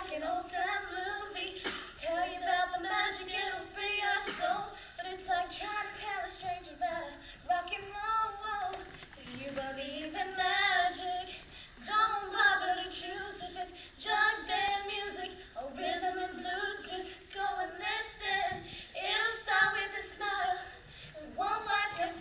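Women singing a song together, unaccompanied, in phrases separated by short breaks.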